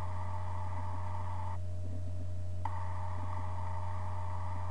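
Steady low electrical hum from the recording setup, with a faint steady tone above it and background hiss that drops out for about a second near the middle.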